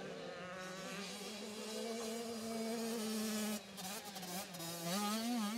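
85 cc two-stroke motocross bikes buzzing on the track. The engine note holds steady, drops briefly about three and a half seconds in, then wavers up and down as the revs rise and fall.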